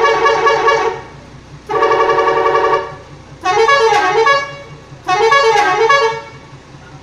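Luragung Jaya bus's 'telolet' musical air horn sounding four blasts. The first two are held chords, ending about a second in and around three seconds in. The last two are short tune phrases with sliding, stepping notes. A low steady throb runs underneath.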